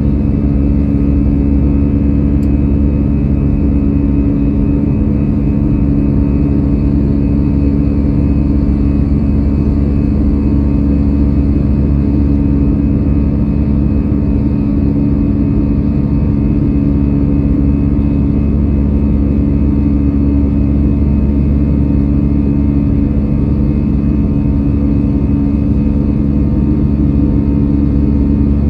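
Cabin noise of an Airbus A320-214 climbing after takeoff: the steady drone of its CFM56-5B turbofan engines and airflow, a low rumble with a couple of steady hums over it.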